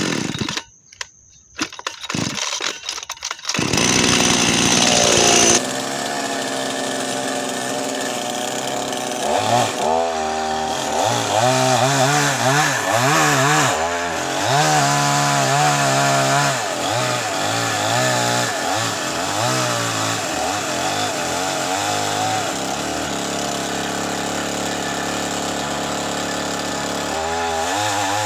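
Two-stroke chainsaw starting: a few short broken bursts, then it catches and runs fast for a couple of seconds before dropping to a steady idle. From about nine seconds in it is revved up and down again and again, with one more burst of revs near the end.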